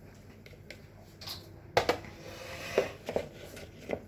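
Kitchen utensils knocking and clinking against a bowl: a few sharp knocks, the loudest a little under two seconds in, with a short scrape between them.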